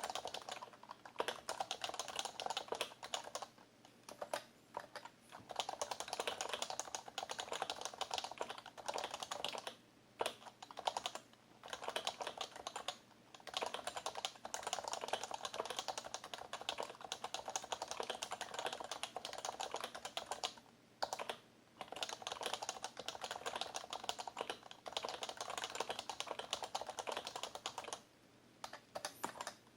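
Typing on an HHKB Professional BT keyboard with Topre electrostatic capacitive key switches: fast, continuous runs of keystrokes broken by a few short pauses.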